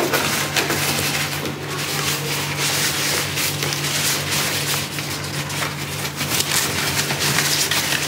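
Packing material crinkling and rustling as it is pulled out of the top of an air cooler, a dense run of small crackles.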